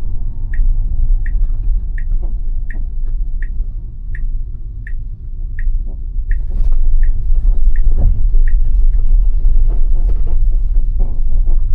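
A Tesla's turn-signal indicator ticking steadily inside the cabin, about one tick every 0.7 seconds, about a dozen ticks before it stops. Low road rumble from the car runs underneath and grows louder past the middle.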